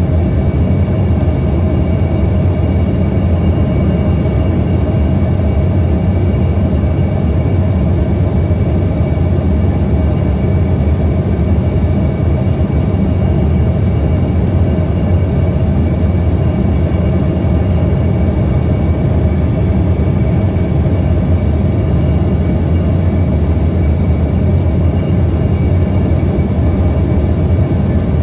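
Steady roar of engines and rushing air heard inside a passenger aircraft's cabin as it comes in to land, with faint steady whines above the rumble.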